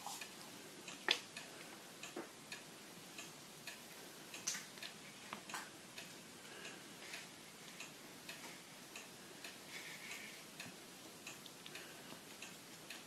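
Faint, irregular light clicks and taps as two Russian Blue kittens play-fight on carpet against a plastic ball-track toy.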